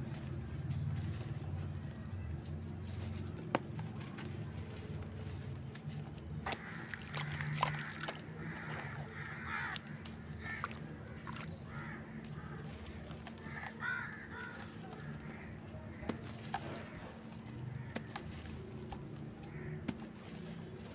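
Hands crumbling and rubbing dry red dirt and cement into a basin of water, with scattered sharp crunches over a steady low hum. Birds call in the background.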